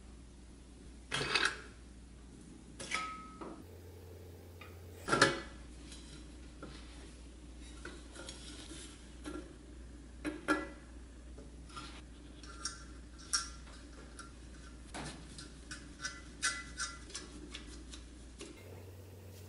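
Hand tools and small metal parts clinking, tapping and scraping on a bench grinder's painted steel switch housing as a toggle switch is fitted and its nut threaded on. A few sharp clinks, the loudest about five seconds in, with lighter ticks between them.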